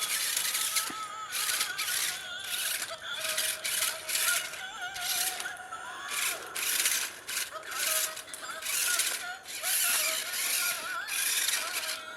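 Toy RC monster truck driving, its motor and gears whirring in repeated short bursts of throttle, with a faint wavering whine running under them.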